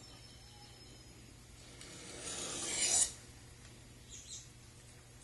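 Steel knife blade drawn along a diamond sharpening stone on a 12-degree wedge: one rasping stroke that grows louder over about a second and stops abruptly, raising a wire edge on one side. A faint short scrape follows about a second later.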